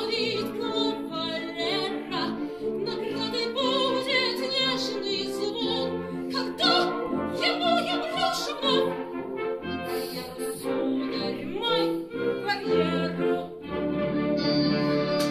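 Operatic singing with vibrato over orchestral accompaniment.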